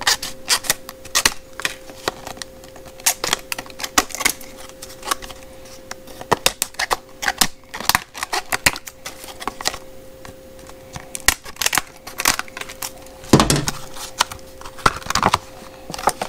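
Stiff clear plastic blister packaging being pried open and handled: irregular clicks, crackles and snaps of the plastic, with a dull thump about 13 seconds in.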